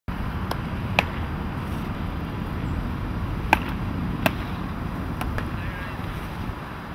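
Baseballs smacking into leather gloves during a game of catch: about half a dozen sharp, short pops scattered through the seconds, over a steady low rumble.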